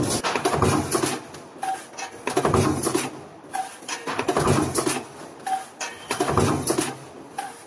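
Mechanical punch press stamping sheet metal through a die, one stroke about every two seconds, each a heavy thump with metal clatter. A short tone sounds once between strokes.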